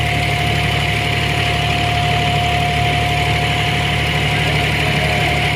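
A boat's engine running steadily underway: an even low drone with a steady whining tone over it and a hiss of water and air.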